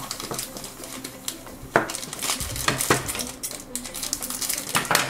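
Crinkling plastic blind-bag wrapper being handled and pulled from a plastic blind-box container, with scattered sharp clicks and clatters of hard plastic. Scissors snip into the wrapper near the end.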